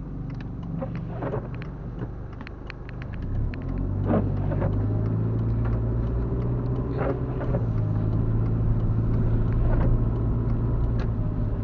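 Car engine running, heard from inside the cabin as the car gets under way: about three and a half seconds in the engine note rises and grows louder, then holds steady. Light ticks and a soft swish about every three seconds sit over it.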